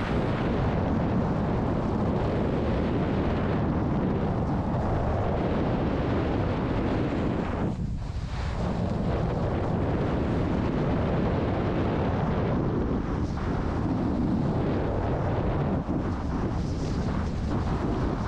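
Wind rushing over an action camera's microphone while a snowboard slides and scrapes over tracked-out snow, a steady rough rumble that eases for a moment about halfway through.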